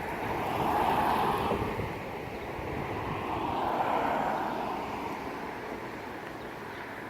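Strong wind gusts rushing through trees, swelling twice and then easing.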